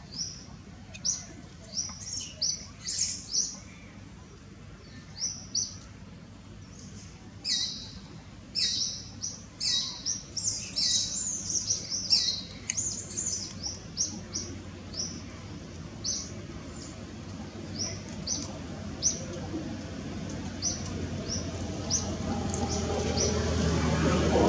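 Birds chirping: many short high-pitched chirps repeated, thickest about a third of the way in. Near the end a low rumble builds and grows louder.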